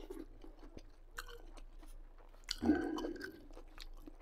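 A person chewing a mouthful of fresh cucumber and tomato salad close to the microphone: wet crunching with many small clicks of teeth and mouth. One louder, fuller sound comes about two and a half seconds in.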